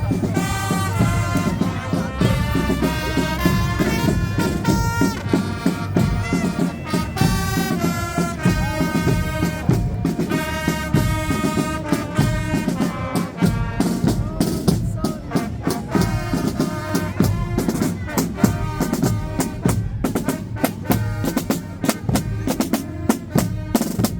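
Brass band music: trumpets and trombones playing a tune over drums, the drumming growing busier in the second half.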